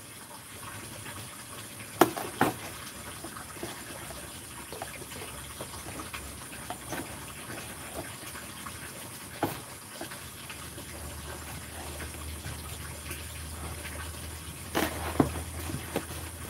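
Steady faint hiss with a few sharp clicks and light knocks from a cardboard shipping box being handled, the clicks coming in a short cluster near the end as a box cutter is brought to the box. A low hum comes in about two-thirds of the way through.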